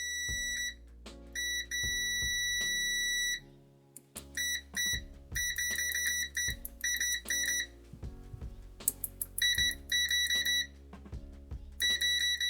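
VENLAB VM-600M digital multimeter's continuity buzzer beeping as the probes close a circuit: two long, steady high-pitched beeps, then runs of short, broken beeps. Background music plays underneath.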